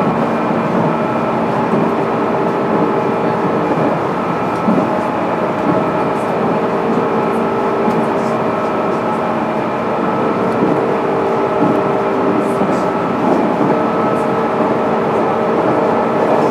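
Inside a JR East 205-series electric train's motor car running at a steady speed: the traction motors and gears whine in a few steady tones over the noise of wheels on rail.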